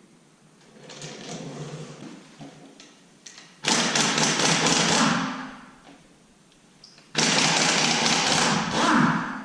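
Impact wrench rattling in two bursts of about a second and a half each, loosening the two connecting-rod cap bolts of a 6.0 L LS V8 so a rod and piston can come out.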